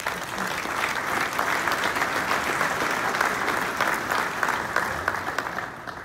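Audience applauding, dense steady clapping that begins abruptly and dies away near the end.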